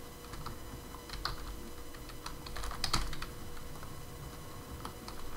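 Typing on a computer keyboard: a run of irregular key clicks as a line of code is typed.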